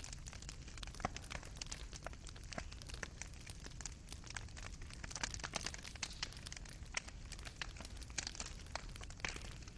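Wood fire in a fireplace crackling: many small irregular pops and snaps from burning embers over a soft low rumble.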